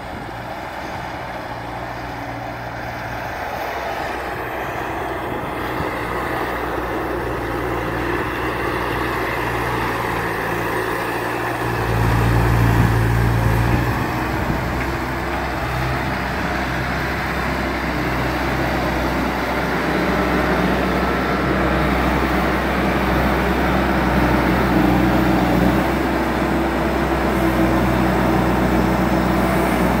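Bobcat S205 skid-steer loader's diesel engine running, growing louder over the first dozen seconds as it comes closer. About twelve seconds in there is a louder, deeper stretch of about two seconds, and the engine then runs steadily on.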